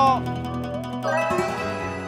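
Background music of sustained, held notes that shift to a new chord about a second in.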